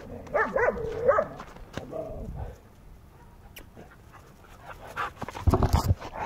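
Stray dogs crying close by: a few short pitched cries in the first second or so and again about two seconds in. Near the end come loud rustling knocks of a jacket against the microphone.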